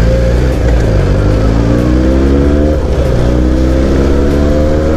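Benelli TNT249S's parallel-twin engine pulling hard under acceleration, the pitch climbing steadily. Near three seconds in, an upshift drops the pitch, and it climbs again.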